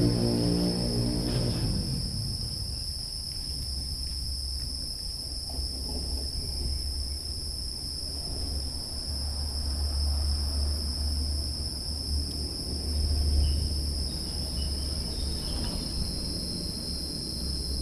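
Steady high-pitched insect chorus in two unbroken bands, over a low fluctuating rumble. Background music fades out in the first two seconds.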